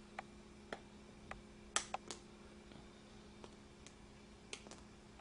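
End-cutting pliers snipping the tails off plastic wire ties on a plastic kneepad frame: a series of sharp clicks, the loudest two close together about two seconds in, over a steady low hum.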